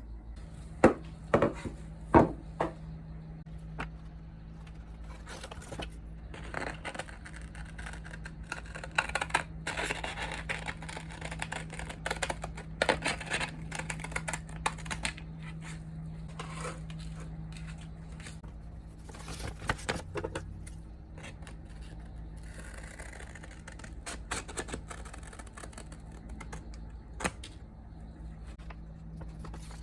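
Hand work on a metal axe head: a few sharp knocks at first, then long stretches of scraping and rubbing, over a steady low hum.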